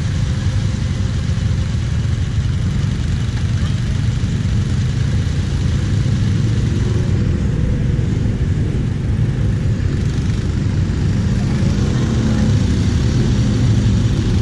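Kawasaki KFX 700 quad's V-twin engine idling steadily close by, a deep even rumble, with other quad engines running around it; it grows a little louder near the end.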